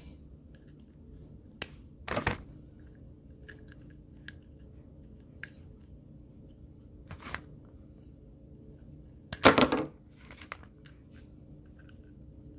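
Needle-nose pliers clicking and scraping inside a plastic shower-head bracket fitting while prying out its filter screen, with scattered small ticks and a few louder clacks, the loudest about nine seconds in.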